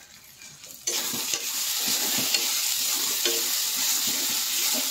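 Food frying in oil in a wok, a loud sizzle that starts abruptly about a second in, with a spatula scraping and knocking against the pan as it is stirred.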